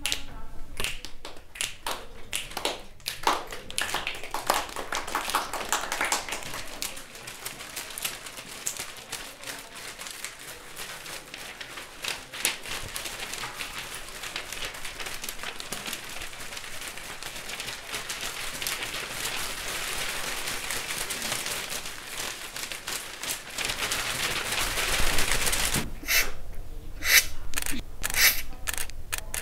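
Home-recorded foley sound effects: a few taps and clicks, then a long stretch of steady crackly rustling, ending in a run of sharp clicks near the end.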